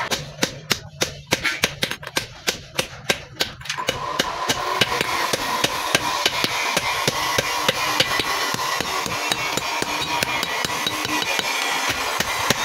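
Hammer blows on metal struck in a steady, regular run, several a second. About four seconds in, a steady hiss and hum joins underneath the strikes.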